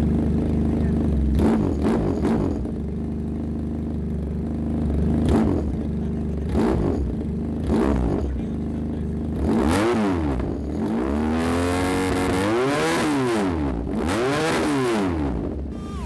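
Motorcycle engine of a BMW S1000RR replica sport bike, heard through its aftermarket slip-on exhaust. It idles steadily with a few short throttle blips, then is revved up and let fall back about four times in the second half.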